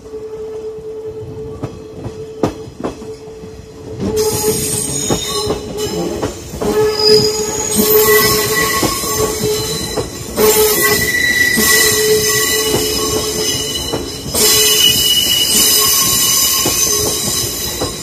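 A JR 185 series electric train passing close on a curve. It comes nearer over the first few seconds with clicks from the wheels, then from about four seconds in its wheels squeal shrilly and loudly as the cars go by.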